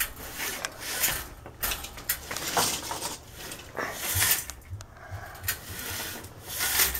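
Irregular rubbing and scraping noises: handling noise from a hand-held camera being moved about.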